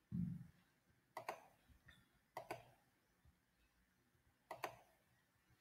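Faint computer mouse clicks, three quick pairs spread over a few seconds, after a short low thump near the start.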